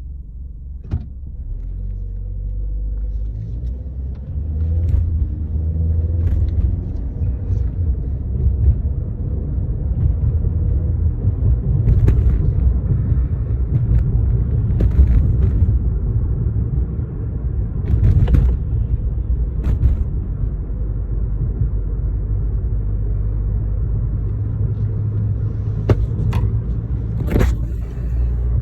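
Inside a 2013 Chevrolet Sonic on the road: a steady low engine and road rumble that builds over the first few seconds as the car picks up speed, then holds, with a few short clicks and knocks along the way.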